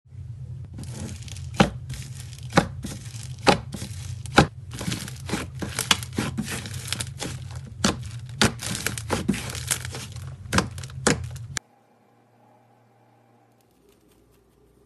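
Thick, air-filled slime squeezed and stretched by hands: a dense run of crackling pops and sharp snaps as trapped air pockets burst, over a steady low hum. It stops suddenly about eleven and a half seconds in.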